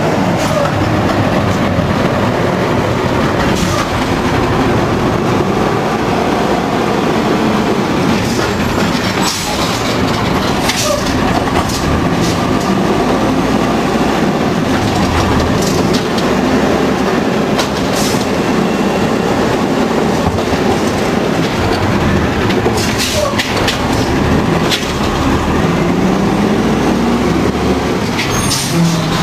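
Automated side-loader garbage truck working close by: the diesel engine and hydraulics run loudly and steadily, with scattered clanks and bangs as the mechanical arm grabs, lifts and dumps the plastic trash cans. The engine note rises near the end.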